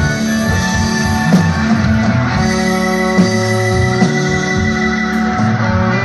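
Live rock band playing an instrumental passage: electric guitars to the fore over bass, drums and keyboard, with a beat about once a second.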